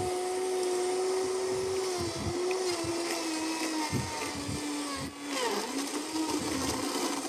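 Vitamix blender motor running at high speed, blending ice, fruit and spinach into a smoothie while the tamper is pushed down through the lid. Its steady whine sags briefly two or three times as the load shifts.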